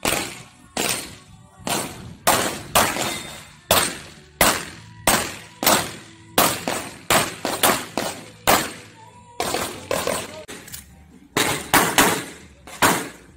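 Glock 17 9mm pistol fired in a string of about twenty shots, roughly two a second with a few short pauses between bursts, each a sharp crack that dies away quickly.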